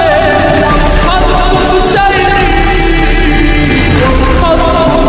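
Islamic nasheed-style ringtone: a solo voice singing an ornamented Arabic melody, its pitch wavering through melismatic turns, over a steady low bass drone.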